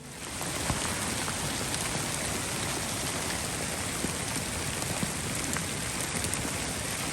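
Hail and rain coming down steadily on the trees and ground: a dense hiss of many small ticks that starts abruptly as music cuts off.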